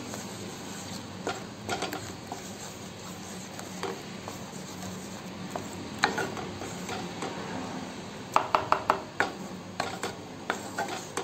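Wooden spatula stirring a thick tomato-and-spice masala in a black kadhai, scraping through the paste and knocking against the pan. About eight seconds in comes a quick run of five or six sharp taps.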